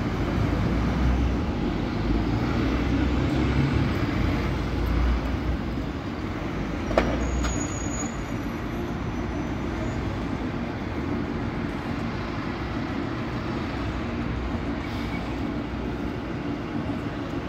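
MAN Lion's City city bus engine pulling away, its low rumble strongest at first and easing after about six seconds, leaving steady traffic noise. A single sharp knock comes about seven seconds in.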